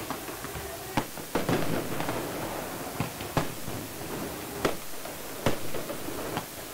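Several sharp explosive bangs of pyrotechnics going off at uneven intervals, over a steady noisy din.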